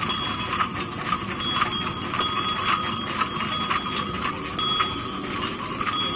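Many brass bells hung along a decorated carrying pole clanking together as it sways, in an uneven beat of two or three strikes a second over a steady ringing.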